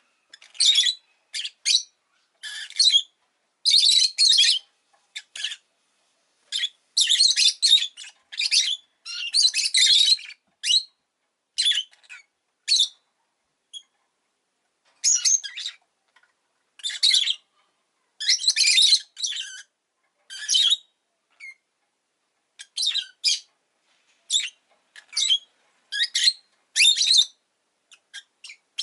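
Rosy-faced lovebird calling: loud, shrill chirps and squawks in quick bursts with short pauses between them, and a brief lull about halfway through.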